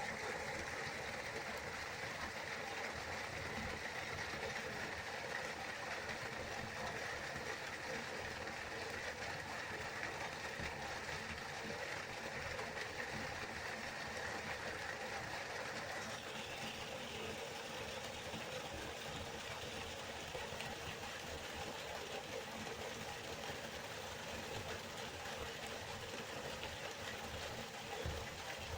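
Waterfall, water falling and rushing in a steady roar; its tone shifts slightly a little past halfway.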